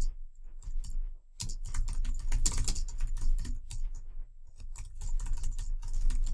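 Typing on a computer keyboard: irregular runs of quick key clicks with short pauses, over a low steady hum.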